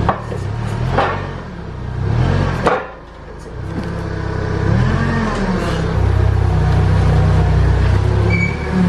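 Forklift engine running and revving up and down as it carries a loaded pallet, with a few sharp clanks in the first three seconds.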